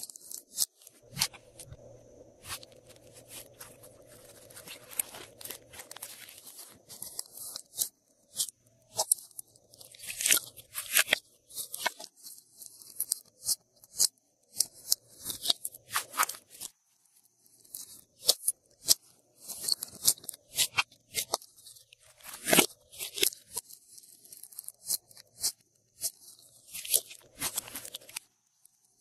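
Hands squishing, pressing and stretching glossy slime: irregular sticky clicks and crackles, some coming in quick clusters.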